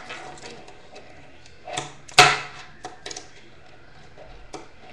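Tech Deck fingerboard doing tricks on a wooden tabletop: one sharp clack a little over two seconds in as the board hits the table, with a short scrape just before it and a few softer taps later.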